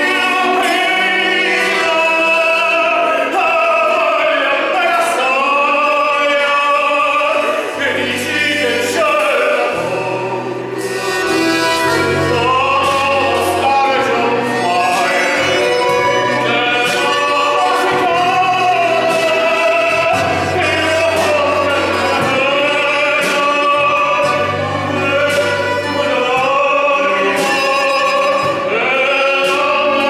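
Live band playing a song: a man sings with vibrato, accompanied by violin, accordion and guitars over a stepping bass line.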